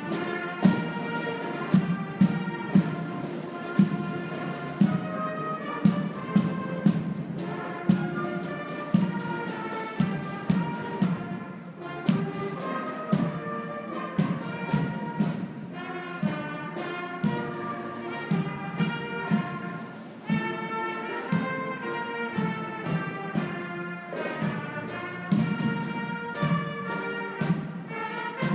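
Marching band playing a march: brass instruments, including a sousaphone, carry the tune over a steady drum beat.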